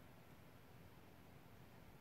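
Near silence: faint steady background noise with a low rumble.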